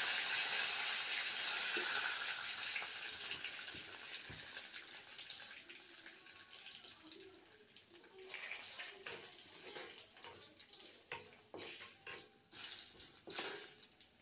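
Panch phoron seeds and bay leaves sizzling in hot oil in a kadai. The sizzle is loudest at first and dies down steadily, then settles into quieter frying with scattered crackles and pops in the second half.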